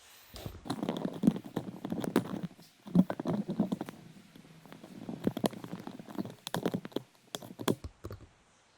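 Rapid clicks, taps and knocks of hands handling a laptop's plastic case, in four bursts separated by short pauses.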